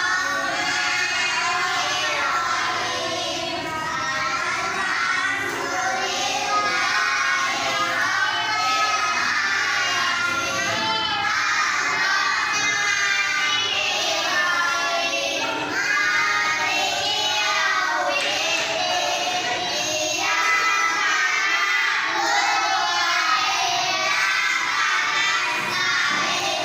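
A group of children singing together over music.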